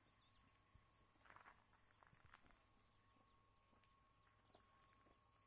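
Near silence, with an insect's faint, evenly pulsed chirping at about five pulses a second that breaks off for a moment past the middle, and a few faint clicks about a second and a half in.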